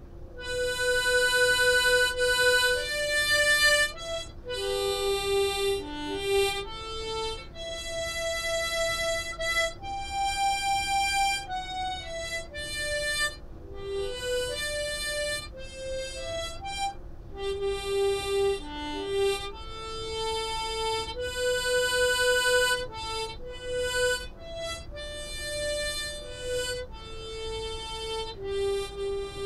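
Harmonica playing a slow tune of single held notes, one after another, over a steady hum.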